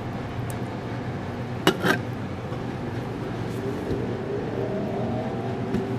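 Steady background hum with two light clicks about two seconds in, a utensil touching the serving dish while a soft-boiled egg is cut and placed; a faint rising tone comes in during the second half.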